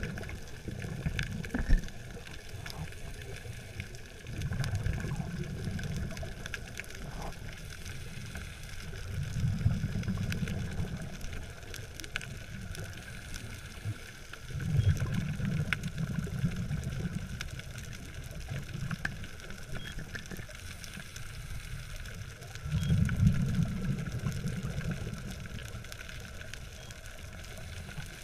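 Scuba diver's exhaled breath bubbling out of the regulator underwater: low, rumbling bubble bursts about every five seconds, over a faint crackle of small clicks.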